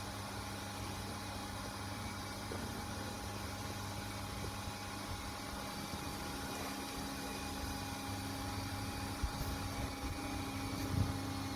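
Electric air pump running steadily with an even hum and airy hiss, inflating a large inflatable ride-on toy, with a couple of faint knocks near the end.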